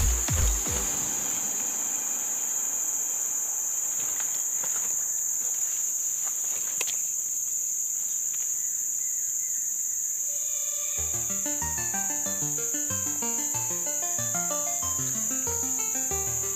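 Insects droning steadily at a high pitch, the constant forest-insect chorus of a jungle river bank. About eleven seconds in, background music with a low, stepping melody comes in over it.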